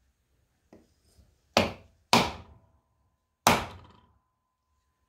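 Hammer striking a soft wooden block laid over a seal wear ring, tapping the ring into a 1950 Farmall Cub front wheel hub held in a vise. It is one light tap, then three solid knocks, with a faint metallic ring hanging on after the second knock.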